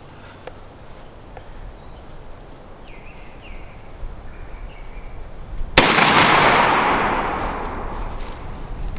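A single shot from a Mossberg 935 12-gauge semi-automatic shotgun firing a 3.5-inch magnum number 5 turkey load, about six seconds in. The blast echoes and fades over about three seconds.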